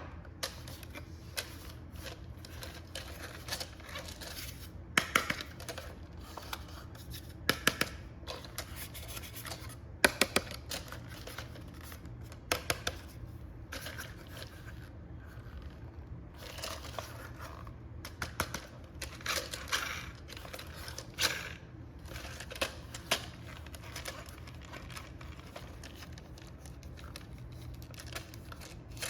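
Packaging being handled and opened: irregular crinkling, tearing and sharp clicks of plastic and cardboard, over a steady low hum.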